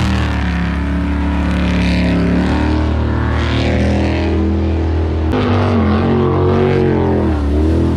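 Jet sprint boat engine running hard at high revs. Its pitch holds steady, shifts abruptly about five seconds in, then falls and rises as the throttle changes.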